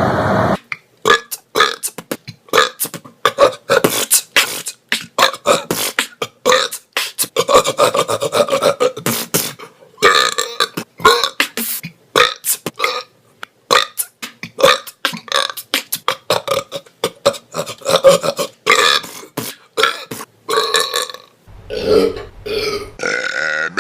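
A man belching over and over in short, rapid burps, several a second. The burping gives way to a steadier sound near the end.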